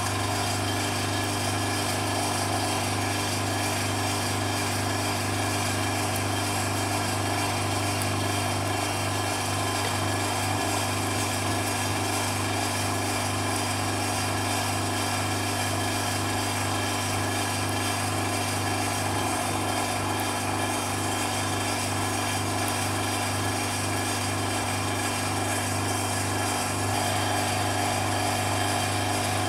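Vacuum pump motor running steadily as it evacuates the vacuum chamber: an even hum with a fast regular pulse.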